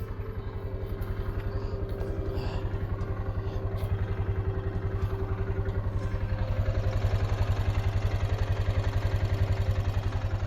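Kawasaki Mule 610 utility vehicle's single-cylinder engine running with an even, rapid pulse, getting louder about six seconds in.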